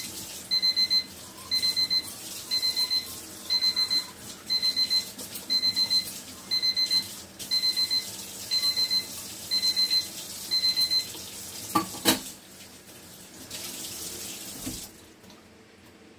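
A timer alarm going off in short bursts of rapid high beeps, about one burst a second, which stops about eleven seconds in. Under it a tap runs into the sink, with a sharp knock at about twelve seconds, and the water cuts off near the end.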